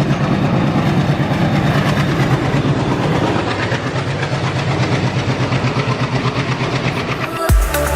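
Express train's ICF coach wheels running over rail joints at about 110 km/h, a fast steady clickety-clack over the rush of the passing train. Electronic music with a heavy beat starts near the end.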